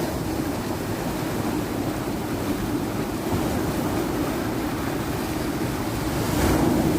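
Ocean surf washing continuously, with wind on the microphone; a wave swells louder near the end.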